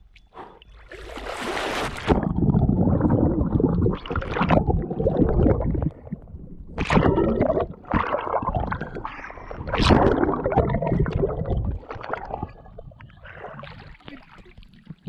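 A person splashing into a lake and swimming, a bright splash about a second in, then uneven muffled churning and bubbling with the microphone under the water, easing to lighter sloshing near the end.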